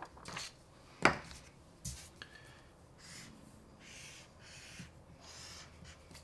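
A sheet of paper is set down with a sharp tap about a second in. Then a felt-tip marker draws lines on the paper in about five short strokes, each lasting about half a second.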